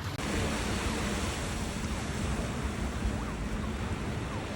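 Sea waves washing steadily on the shore, with wind buffeting the microphone.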